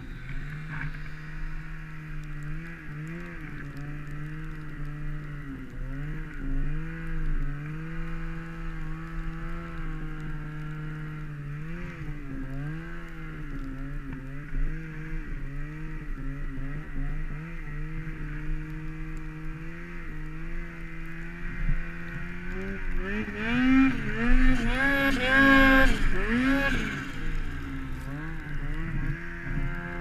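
Ski-Doo 850 turbo snowmobile's two-stroke engine revving up and down again and again as the throttle is worked. It works hard pushing through deep, heavy snow. The revving is hardest and loudest from about 23 to 27 seconds in, with a hiss riding on top.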